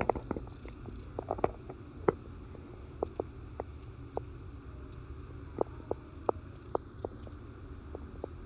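Indoor room tone: a steady low rumble with scattered light clicks and taps at irregular intervals.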